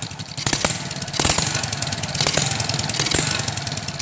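Honda Supra X 125's single-cylinder engine idling steadily on a test run after being reinstalled, with a few sharp clicks over it.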